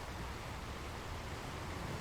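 Ocean surf: a steady wash of waves on the shore, swelling slightly near the end.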